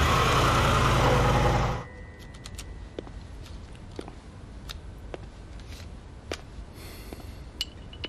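A vintage sedan's engine running amid street noise, cutting off abruptly about two seconds in. Then a quiet room with scattered light clicks and a brief rustle as a stack of paper banknotes is flipped through by hand.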